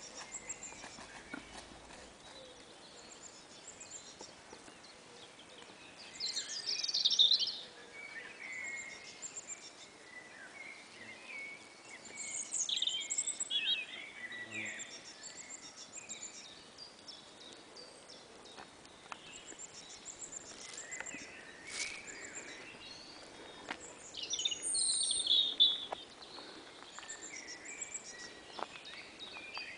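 Spring birdsong from a robin, a blackbird and a chiffchaff, many short overlapping phrases, with the loudest bursts of song about seven seconds in and again about twenty-five seconds in.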